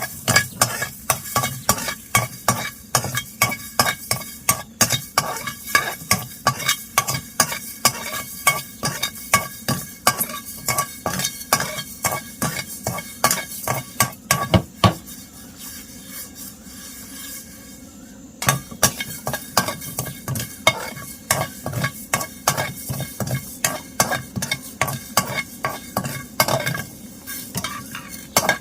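A utensil stirring and scraping in a pan of frying food, in quick repeated strokes with a pause of a few seconds midway.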